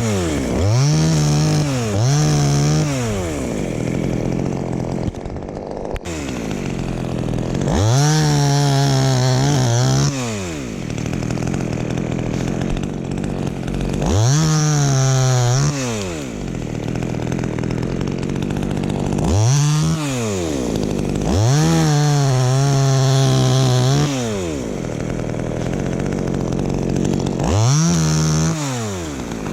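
Chainsaw cutting a tamarind tree, revved in about seven bursts. Each burst rises to full speed, holds for one to three seconds, then drops back to idle.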